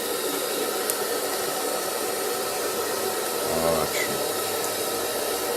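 Hair dryer running with a steady whoosh, its level even throughout; a short voice sound breaks in about three and a half seconds in.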